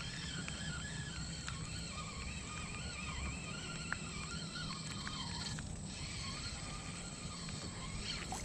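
Outdoor ambience: a steady low rumble of wind on the microphone with faint wavering bird calls, and one sharp click about four seconds in.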